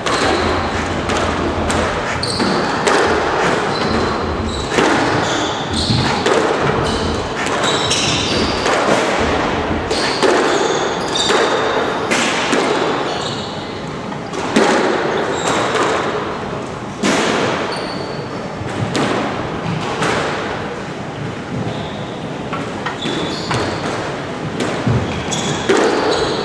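A squash ball being hit back and forth in a rally: sharp racket strikes and the ball smacking the walls every second or two, echoing around the court, with short high squeaks of court shoes on the floor.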